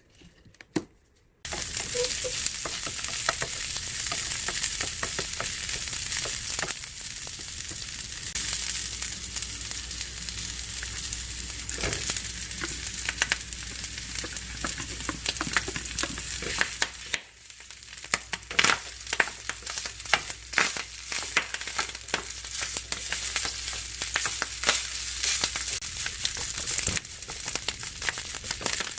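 Food frying in a pan: a steady sizzle full of crackles and sharp little pops. It starts suddenly about a second and a half in.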